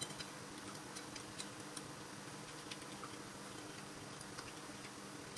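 Eating at a table: chopsticks making small, irregular clicks against a porcelain bowl, over a faint steady hum.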